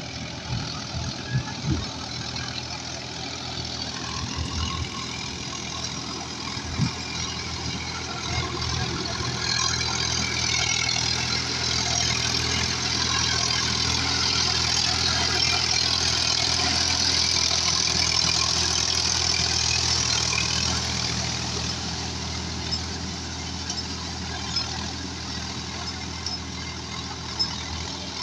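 Sonalika tractor's diesel engine running steadily under load as it pulls a nine-tyne cultivator through a waterlogged field. It grows louder as the tractor passes close by around the middle, then eases off as it moves away. A few sharp knocks sound in the first several seconds.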